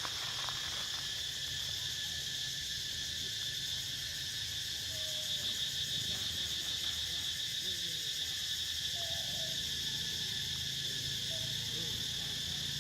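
Insects keeping up a steady high-pitched drone, with a few faint short calls here and there.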